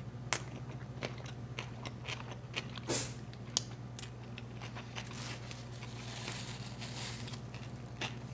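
Close-miked eating of lo mein noodles: a slurp, then chewing with scattered wet mouth clicks and smacks, one louder smack about three seconds in, and a soft hiss of breath or slurping for a couple of seconds past the middle.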